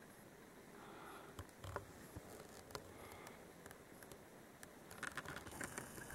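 Very quiet still winter air with faint scattered clicks and taps, one sharper tap early and a small cluster about five seconds in.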